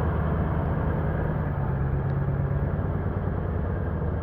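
Car engine running with a steady low hum, the tow vehicle of a boat trailer with the tinny loaded on.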